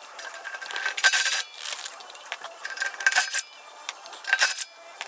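Ridgid cordless impact wrench hammering lug nuts off a wagon wheel, running in several short bursts, each a rapid clatter of blows with a steady whine, with brief pauses between.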